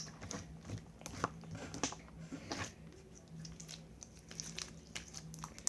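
Stretchy light blue slime being squished and stretched by hand, giving faint, scattered little clicks and squelches.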